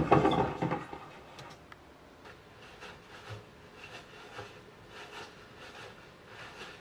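Konnyaku (konjac jelly) being squeezed and worked by hand as foley for a zombie eating flesh. It gives soft, irregular squishing and rubbing sounds spaced a second or less apart, after a louder sound fades out in the first second.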